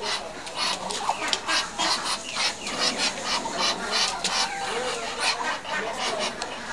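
Muscovy ducks calling at close range: a steady run of short hissing puffs, about three a second.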